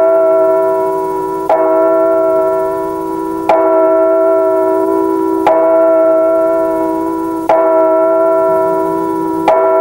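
A bell tolling at an even pace, one stroke every two seconds, five strokes in all, each ringing on into the next: the opening of a piece of music.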